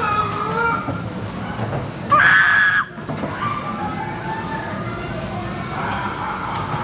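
Ghost train dark ride running with a steady rumble, voices and effects in the background, and a loud, high scream about two seconds in that lasts under a second.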